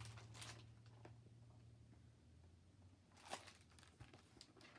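Near silence with faint rustling of a hardcover picture book's pages being handled and turned, the louder rustle about three seconds in.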